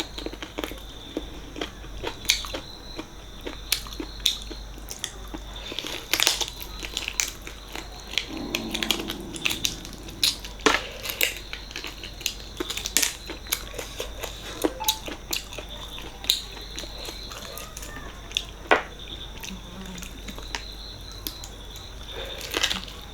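Close-miked eating sounds: a person chewing soft, wet mutton paya curry and rice, with frequent short mouth clicks and smacks spread irregularly throughout.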